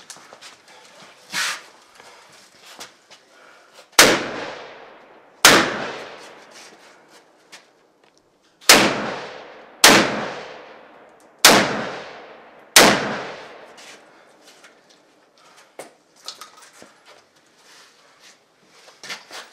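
Six rifle shots spread over about nine seconds, each cracking sharply and trailing off in a short echo.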